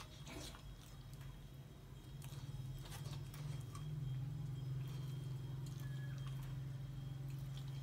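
A few scattered clicks and taps from a Rottweiler-cross puppy moving about and licking its lips on a wooden board, over a steady low hum that grows a little louder about three seconds in.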